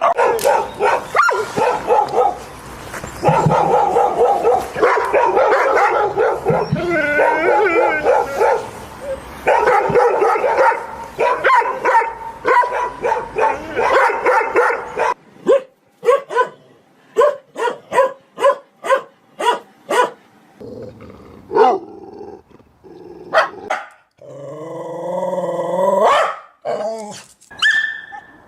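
Several dogs barking at once in a dense, overlapping chorus for about the first fifteen seconds. Then a single series of sharp barks in a quick, even rhythm of about two a second, and near the end a long, wavering drawn-out dog cry.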